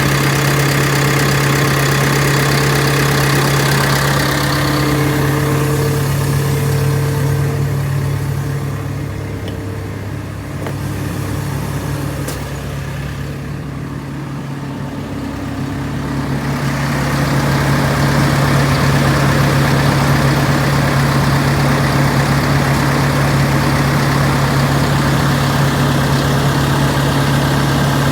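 Diesel engine of a JCB 220XLC tracked excavator running steadily at an even speed. The sound fades for several seconds about a third of the way in and comes back up after the middle.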